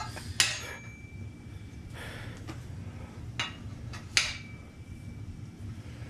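Metal anti-roll bar parts clinking together as the bar assembly is handled: two sharp clinks about four seconds apart, each ringing on briefly, with a couple of fainter knocks between them.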